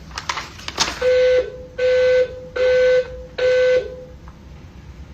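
A building emergency alarm sounds its signal tone: four buzzy beeps of about half a second each, evenly spaced. The tone announces a reported emergency in the building and comes before a recorded evacuation announcement. A few light clicks come just before the first beep.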